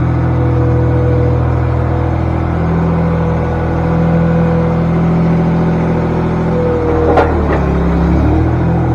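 Tractor engine running steadily with a whine over its note; about seven seconds in there is a short clatter and the engine pitch dips briefly before recovering.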